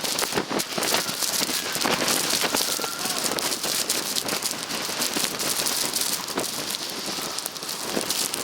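Blizzard wind driving blowing snow against the camera and microphone: a steady, dense crackling hiss full of fine ticks.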